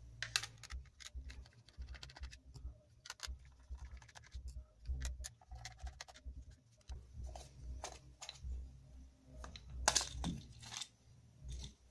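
Phillips screwdriver turning small self-tapping screws out of a plastic speaker housing: faint, irregular clicks and scrapes with handling rumble. The loudest cluster of plastic clicks comes about ten seconds in, as the case halves are pried apart.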